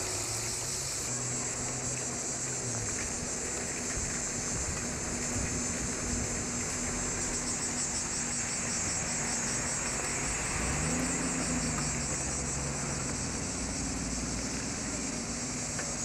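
Cicadas shrilling steadily in the trees, a high, pulsing drone throughout. A motor-vehicle engine runs low underneath, its pitch rising and then falling back in the second half.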